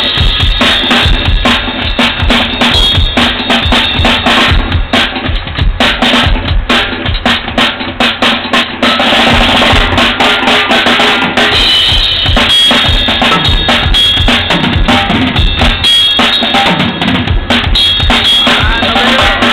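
Acoustic drum kit played continuously during a sound check: fast, dense kick drum and snare hits with cymbals.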